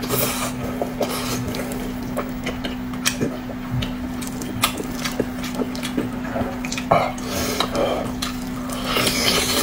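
Eating utensils tapping and scraping on bowls and plates: scattered light clicks over a steady low hum.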